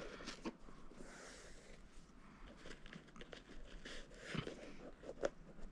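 Faint rustling and a few small clicks of a shoelace being threaded through a sneaker's eyelets and the shoe being handled.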